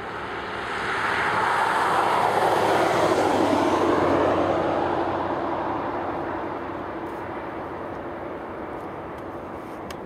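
A vehicle passing by: a rushing swell that builds to a peak two to four seconds in, its pitch sweeping down as it goes, then fades away to a steady low hum.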